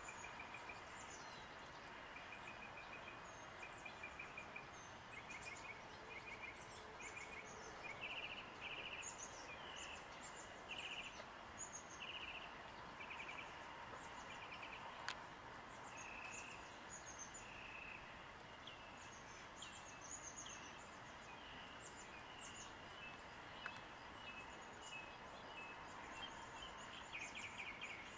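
Small birds calling over a faint steady background hiss: short buzzy trills repeat about once a second, with thin high chirps above them and a single sharp click about halfway through.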